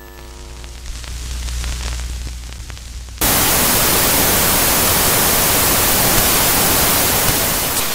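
Electronic TV-interference sound effect: a low hum and buzz with steady tones that grows louder, then about three seconds in a sudden switch to loud television static hiss that fades out near the end.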